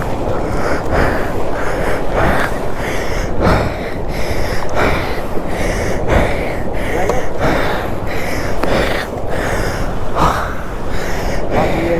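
A person's rapid, heavy breathing close to the microphone, about one breath a second, over a steady rumble of wind and motor noise.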